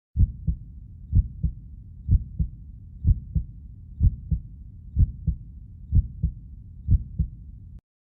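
Heartbeat sound effect: a steady lub-dub of paired low thumps, eight beats at about one a second, over a low steady rumble. It starts just after the opening and cuts off shortly before the end.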